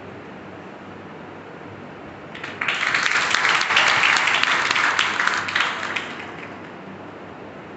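Audience clapping in an auditorium. A burst of applause starts about two and a half seconds in, lasts about three seconds and fades away, with low room noise before and after.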